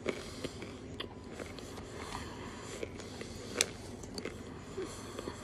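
A person chewing chalk close to the microphone: scattered small crunches and clicks, with one sharper crunch a little past halfway.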